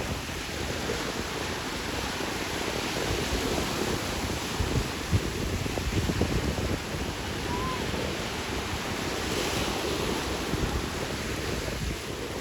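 Surf washing onto a sandy beach, a steady wash of waves, with wind buffeting the microphone in low rumbling gusts.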